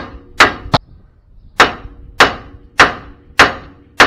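Hammer blows on the steering knuckle of a 1998 Chevy C1500, about eight sharp metal-on-metal strikes roughly every half second with a short break about a second in, each with a brief ring. The blows shock the tie rod end's tapered stud loose from the knuckle.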